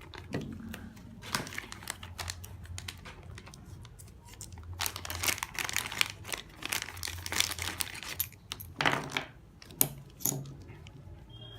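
Plastic packaging crinkling and rustling as it is handled, with many scattered small clicks and taps, busiest in the middle.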